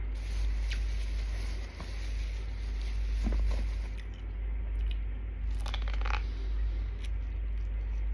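Biting and chewing on boiled corn on the cob, with a few crisp bites, the clearest about three seconds in and around six seconds, over a steady low rumble.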